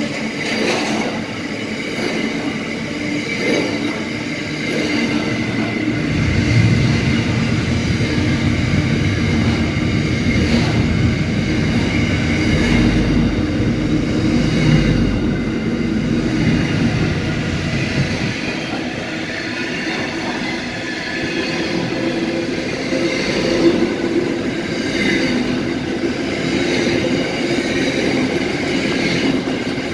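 Container wagons of a Pacific National intermodal freight train rolling past close by: a steady rumble and rattle of steel wheels on rail with a few sharp clanks. A deeper rumble swells in the middle.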